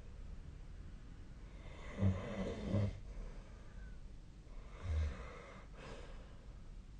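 A sleeping person snoring. One snore lasting nearly a second comes about two seconds in and a shorter one about five seconds in, with softer breathing between.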